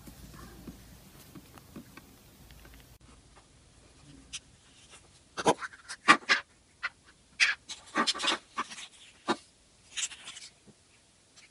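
Small plastic surprise-egg capsules being handled and prised open by hand: faint ticks at first, then from about halfway in a quick run of sharp plastic clicks, snaps and rattles.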